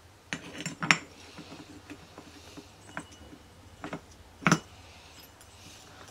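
Metal clutch parts of a Derbi Euro 3 engine clinking and knocking against each other and the aluminium crankcase as they are handled and fitted onto the shaft. A few sharp clinks come at uneven intervals, the loudest about a second in and again about four and a half seconds in.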